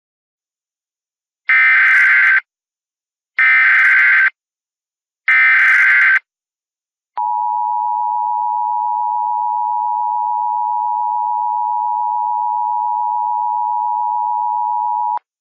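Emergency Alert System activation: three short screeching bursts of SAME header data, each under a second and about two seconds apart, then the steady two-tone EAS attention signal held for about eight seconds before it cuts off.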